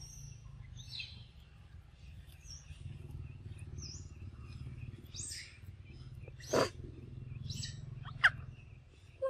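Forest ambience: small birds chirping over and over above a low steady rumble, with a short loud sound about six and a half seconds in and a quick falling squeak about a second later.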